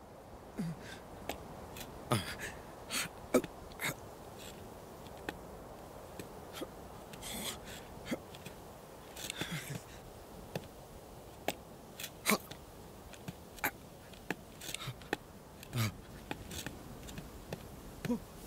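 Quiet outdoor ambience fading in, scattered with short sharp clicks and scuffs of a sheep's hooves shifting on rock.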